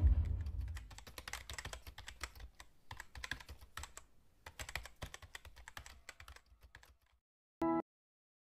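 Fingers typing on a computer keyboard: rapid, irregular key clicks. A short tone sounds near the end.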